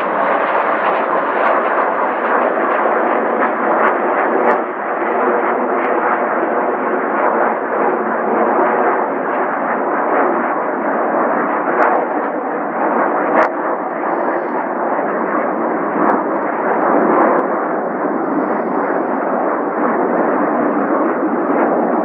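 Aircraft engine noise, loud and steady with a rough, crackling edge.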